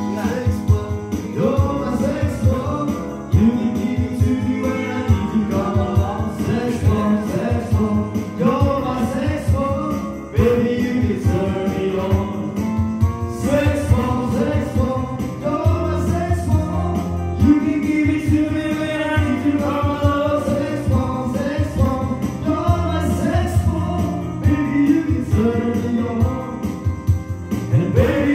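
Background music: an upbeat song with singing, a steady beat and jingling percussion.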